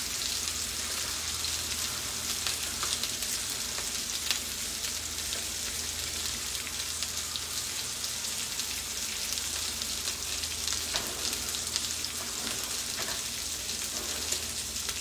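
Whole sardines sizzling steadily in hot oil in a cast-iron skillet, with fine scattered crackles.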